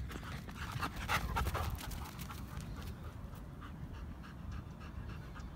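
Doberman and German Shepherd panting hard after a run, a quick, even rhythm of short breaths.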